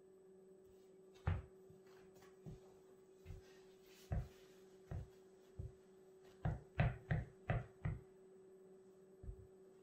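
Asics Gel Kayano 25 running shoes stepping and tapping on a wooden floor: about a dozen soft thumps at an uneven pace, with a quicker run of five steps a little past the middle. A faint steady hum runs underneath.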